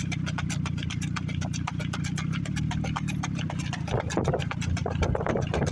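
Hooves of a keg-shod stallion beating out a fast, even four-beat singlefoot on a dirt road, about nine hoofbeats a second, over a steady low engine hum. A rougher rushing noise joins about four seconds in.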